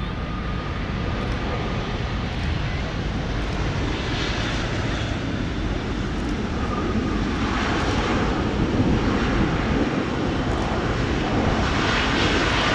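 Boeing 777-300ER's GE90-115B turbofans running in reverse thrust during the landing rollout: a steady jet rush that grows louder, with more hiss coming in about a third of the way through and again near the end.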